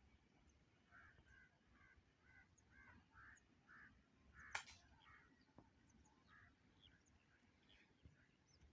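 Faint bird calls: a run of short calls repeated about three times a second, thinning out later. One sharp click sounds about halfway through.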